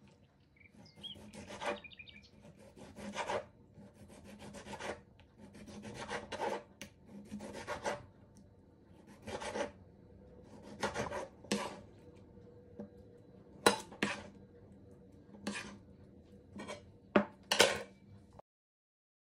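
Kitchen knife slicing a tomato on a wooden cutting board: a rasping stroke about every second as the blade is drawn through the skin and flesh, some ending in a sharp tap of the blade on the board. The cutting stops abruptly near the end.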